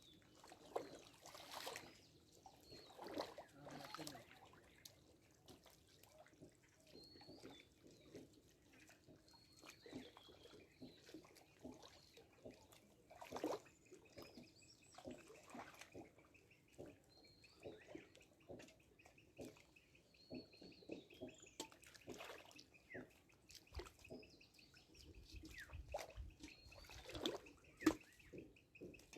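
Faint splashing and trickling of pond water, with scattered bird chirps.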